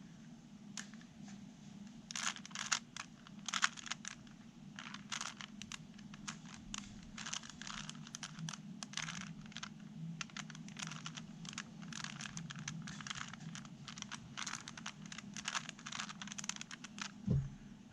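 Plastic Rubik's Cube being twisted by hand: a long run of quick, irregular clicks and rattles as the layers turn, starting about two seconds in.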